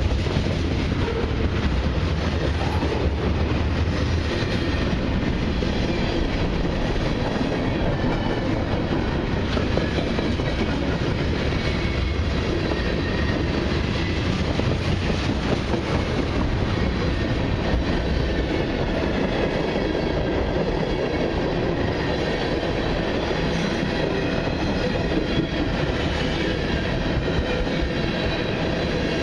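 Freight cars of a long mixed freight train rolling past at steady speed: a continuous rumble of steel wheels on rail.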